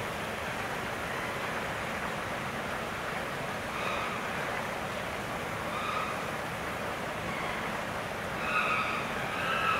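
Chimpanzees giving short, high-pitched calls: one about four seconds in, another about six seconds in, and several close together near the end, over a steady rushing background noise.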